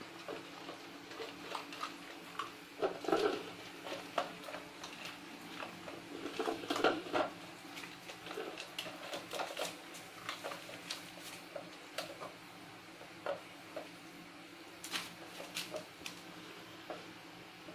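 Puppies eating at plastic pet bowls on a tile floor, with the bowls knocking and scraping as they are nosed and moved. Irregular small clicks and clatters, busiest about three seconds in and again about seven seconds in.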